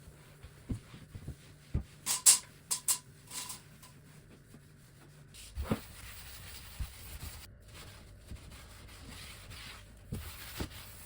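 Household objects being handled and set down: scattered knocks, with a quick run of sharp clinks about two seconds in, one of them briefly ringing.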